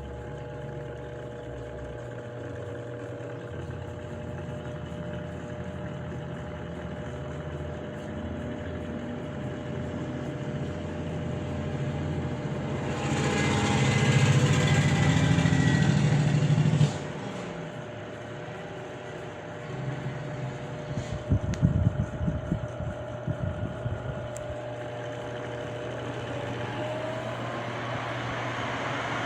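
Tron Premium 50 cm table fan running, its motor humming steadily under the rush of the blades. About halfway through, the air noise swells loudly for a few seconds and then drops off suddenly. Irregular low thumps of wind buffeting the microphone follow.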